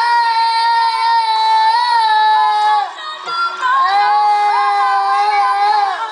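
A toddler singing along in two long, high held notes, each sliding down in pitch at its end, with a short break about three seconds in. Music from a laptop's speakers plays underneath.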